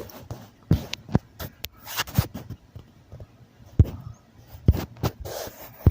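Handling noise: irregular sharp taps and knocks with faint scraping, about a dozen spread over several seconds, after a synthesizer-like tone cuts off at the start.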